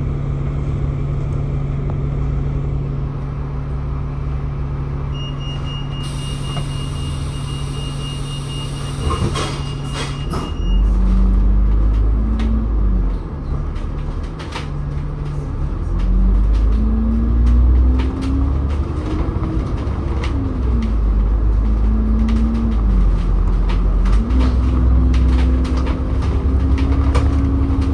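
Bus diesel engine idling steadily, then about ten seconds in pulling away and accelerating over a heavy low rumble, its pitch rising and falling through several gear changes. A thin, steady high tone sounds for several seconds before it moves off.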